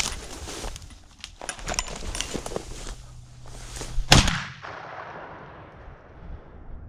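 Dry grass and brush crackling and rustling, then a single shotgun shot just after four seconds in, echoing away over about two seconds.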